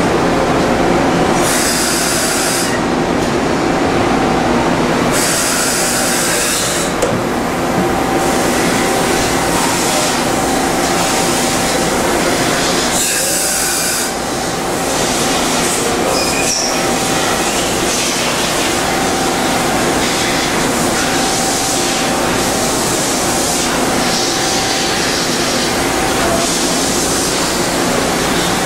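1986 Okuma MC-50H CNC horizontal machining center running during a pallet change: a loud, steady mechanical hum with a few held tones, broken by short loud hisses about two seconds in, around five to seven seconds in and about thirteen seconds in.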